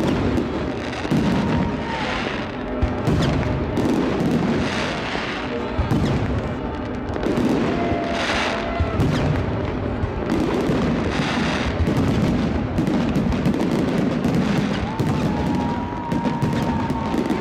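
Aerial fireworks display: a continuous run of shell bursts and crackle, with heavier booms every second or two.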